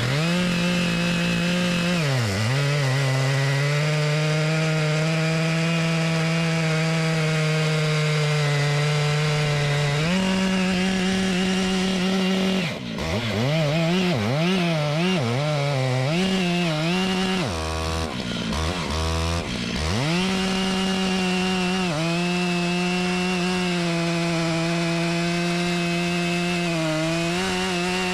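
Large gas chainsaw cutting at full throttle, its pitch sagging under load a few times and dropping to a brief idle about two-thirds of the way through before revving back up.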